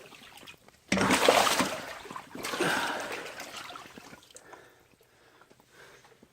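Standing floodwater in a crawl space splashing and sloshing as someone moves through it: a sudden loud splash about a second in, a second one shortly after, then fainter sloshing.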